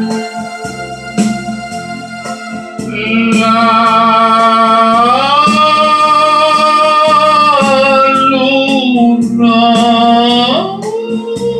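A man sings long, held high notes in falsetto over an instrumental backing track with a regular beat. His voice comes in about three seconds in; the held note rises, breaks off briefly, returns, then slides down near the end.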